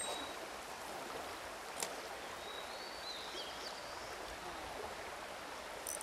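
Steady rush of a mountain stream's flowing water, with one faint sharp click about two seconds in.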